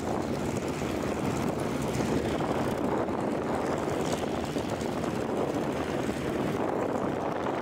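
Propeller aircraft piston engines running with a steady, rough drone that rises in level at the start and then holds even.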